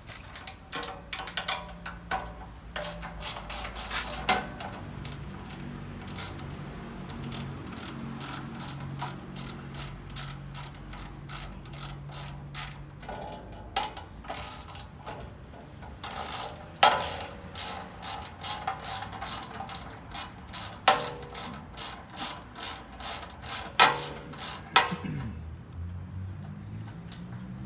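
Socket ratchet clicking in quick runs as the 10mm bolts holding a chain guard are backed out, with a few louder sharp knocks in the second half.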